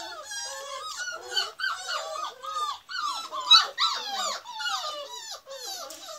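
Beagle puppies whining and squealing together, many high cries at once that rise and fall in pitch, with one louder yelp about three and a half seconds in.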